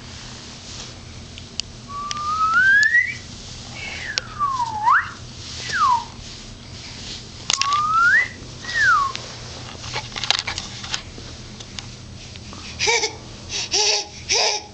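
A person whistling two phrases of sliding notes, each rising and then falling in pitch, the first about two seconds in and the second about seven seconds in. Near the end a baby gives three short squeals.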